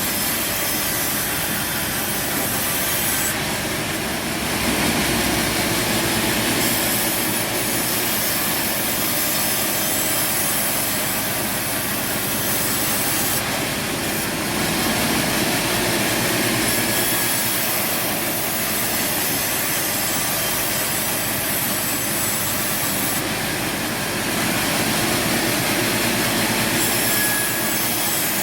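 A sawmill saw cutting through wood in one continuous, dense rushing noise. The sound turns fuller and lower three times, about ten seconds apart.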